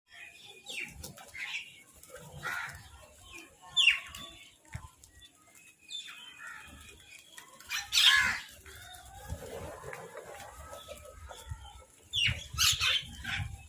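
Crows and mynahs calling over food: a string of short, varied calls and squawks, the loudest about four and eight seconds in and a quick run of them near the end, with wing flapping among them.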